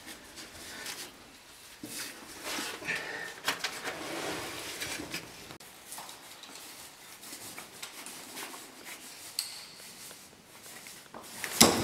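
Cavers moving through a rocky cave passage: scattered scrapes, rustles and small knocks of suits and gear against rock, with a louder sharp knock near the end.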